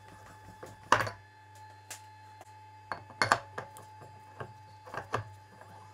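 Scattered light clicks and taps as the abrasive disc of a lapping machine is handled by hand, over a faint steady hum.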